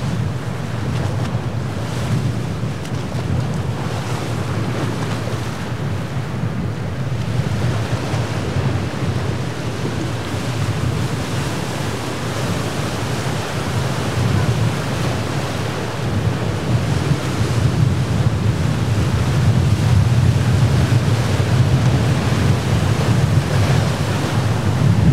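Steady wind noise on the microphone over surf breaking against a rock jetty, growing a little louder in the second half.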